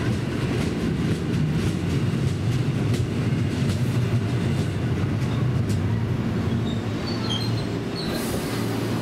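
A Series 205 electric commuter train pulling into the platform and slowing: a steady low rumble with wheels clicking over the rails, and a few faint high squeals near the end.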